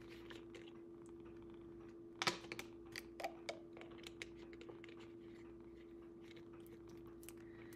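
Thin plastic water bottle crackling in the hand as its screw cap is twisted, a scatter of sharp clicks and crinkles, loudest about two seconds in. A faint steady hum runs underneath.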